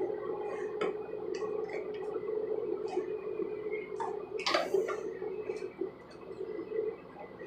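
Hands kneading and stretching slime with shaving cream worked into it, giving scattered small sticky clicks and pops, with one louder squelch about four and a half seconds in.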